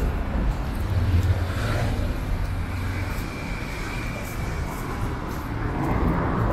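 City street traffic: a car driving past on a cobbled road, its low rumble swelling about a second in, with a thin high whine for a couple of seconds in the middle.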